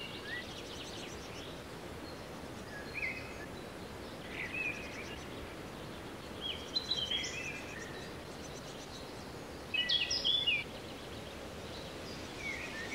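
Small wild birds giving short, high chirping calls every second or two, loudest in a cluster about ten seconds in, over a steady outdoor background hiss.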